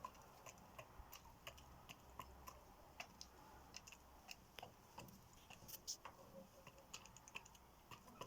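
Faint, irregular clicking and tapping, a few sharp clicks a second, over a quiet background hiss.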